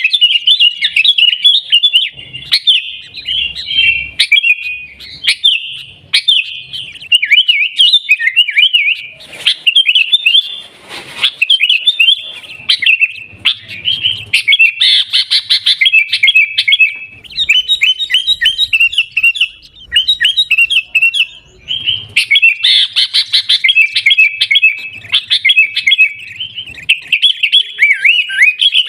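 Sooty-headed bulbul (kutilang) singing without a break: loud runs of quick, bubbling chirps and short whistled notes, phrase after phrase.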